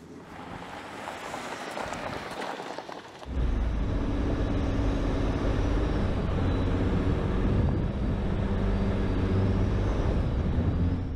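2018 Ford Expedition's twin-turbo V6 engine and drivetrain running steadily as it drives along a dirt trail, picked up close at the front grille with wind rushing over the microphone. It comes in suddenly about three seconds in, after a softer rising rush of noise.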